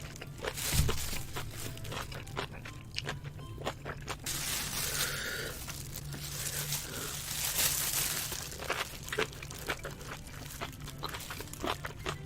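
Close-miked eating: crunchy, wet chewing of kimchi-wrapped spicy noodles, with many short sharp clicks. About four seconds in there is a longer, more hissing stretch lasting around two seconds.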